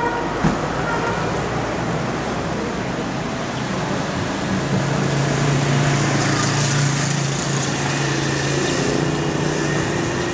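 Street traffic: motor scooters, cars and vans passing. A steady low engine hum comes in about halfway through.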